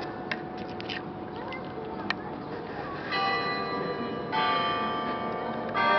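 Church bells in the Peter and Paul Cathedral's bell tower being struck. New notes come in about three seconds in, again about a second later and once more near the end, each ringing on in a long, steady hum over the fading tones of earlier strokes.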